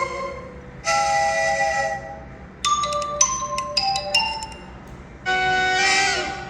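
Apple iPhone 14 ringtone playing through the phone's loudspeaker: three short melodic phrases of clear, bright notes, each separated by a brief pause.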